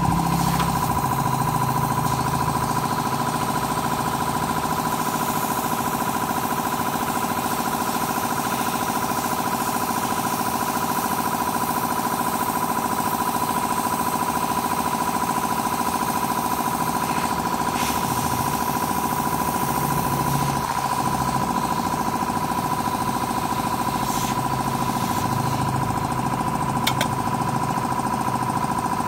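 Air compressor running steadily to feed a hot-air plastic welding machine, with a constant high whine over its hum. A short click near the end.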